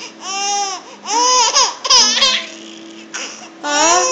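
A baby laughing in high-pitched squeals, about five arching calls in a row with short gaps between them.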